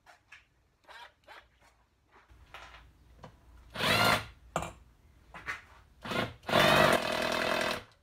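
Cordless impact driver on a screw in a BSA A70L engine casing, after a few light handling clicks: several short bursts of its motor and hammer from about four seconds in, then a longer run of about a second and a half near the end, working the screw loose.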